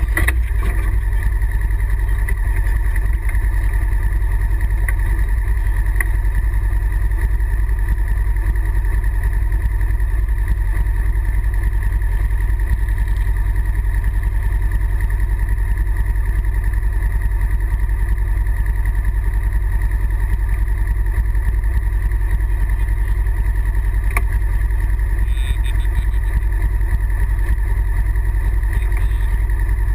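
Side-by-side UTV's engine idling steadily while parked, heard from on board the vehicle.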